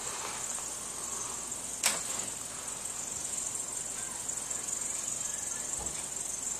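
Crickets chirping in a steady high trill, with a single sharp click about two seconds in.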